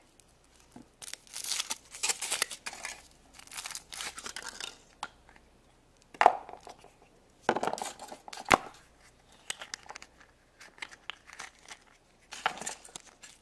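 Foil wrapper of a Kinder Surprise egg crinkling and tearing as it is peeled off, then the yellow plastic capsule inside snapping open with a sharp click about six seconds in and another a couple of seconds later, followed by light rattling of small plastic toy parts.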